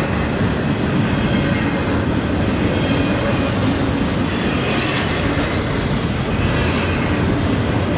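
Double-stack intermodal well cars rolling past close by: a loud, steady noise of steel wheels running on the rails.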